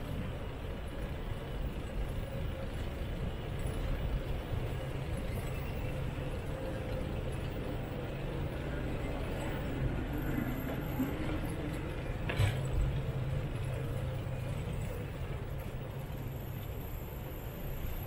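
City street traffic: a steady rumble of road vehicles with a low engine hum, and a single brief knock about twelve seconds in.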